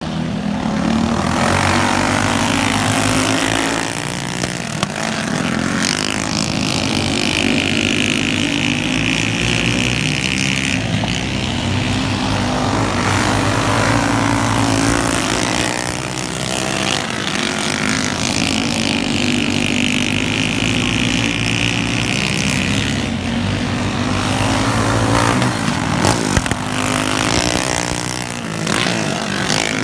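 Several dirt-oval racing go-kart engines running at full race pace, the engine pitch rising and falling as the pack laps the track and passes by about every twelve seconds.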